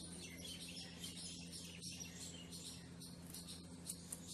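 Guinea pig chewing cucumber: a quick, faint run of crisp, wet crunches, over a steady low hum.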